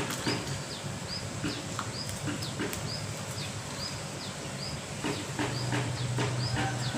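Lovebirds calling: short, shrill hooked chirps repeating a little more than once a second, mixed with quicker scattered chirps, over a low steady hum.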